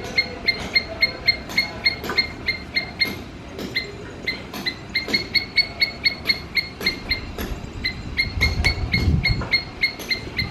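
Squirrel calling in a long run of short, sharp chirps, about three a second, pausing now and then. A low rumble joins in about eight seconds in.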